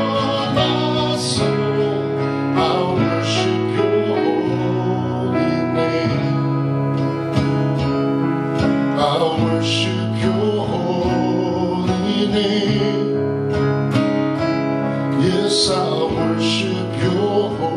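Live worship song: a man singing, accompanied by a strummed acoustic guitar and a digital piano.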